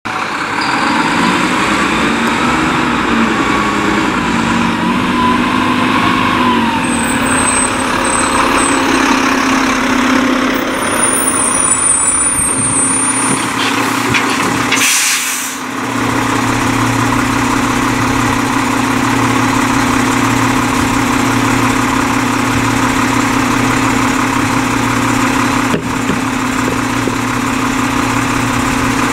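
Diesel engine of a rear-loading E-Z Pack garbage truck, its pitch rising and falling through the first half. About halfway there is a short loud burst of air hiss, and then the engine idles steadily.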